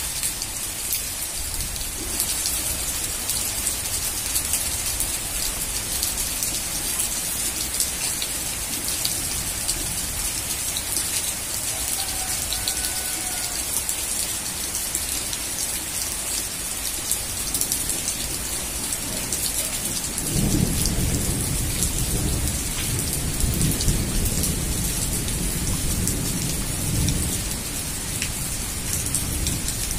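Heavy rain falling steadily, a dense even hiss. About two-thirds of the way in, a loud low rumble with uneven surges joins it.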